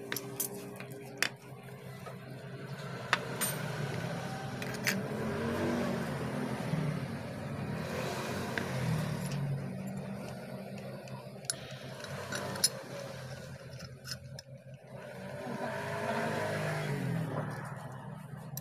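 A vehicle engine running over a steady low hum, its pitch wavering up and down about five seconds in and again near the end, with a few sharp clicks of small metal parts being handled.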